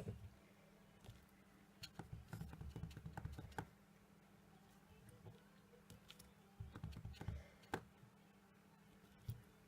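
Faint quick taps and clicks of a clear acrylic stamp block being pressed and set down on card on a tabletop, in two short flurries, over a steady low hum.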